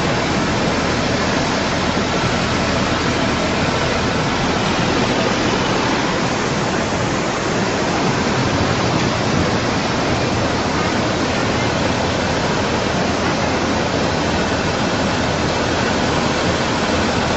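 Fast-flowing floodwater rushing, a steady and unbroken noise of moving water.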